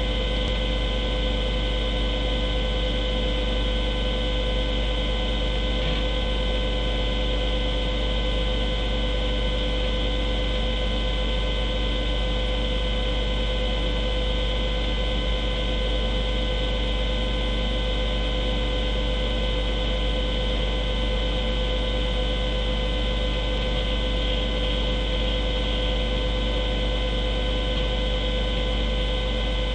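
Steady electrical hum and hiss with a low rumble and several high, unwavering tones, unchanging throughout.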